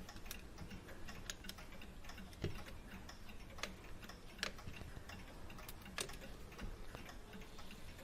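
Faint, irregular small metallic clicks and ticks from a Hermle clock movement's levers and cams being turned and handled on the bench, with a few sharper taps.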